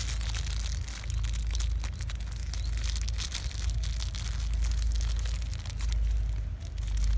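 Clear plastic bag crinkling and plastic raffia string rustling as they are handled and wound tight around a tree branch, in dense irregular crackles over a steady low rumble.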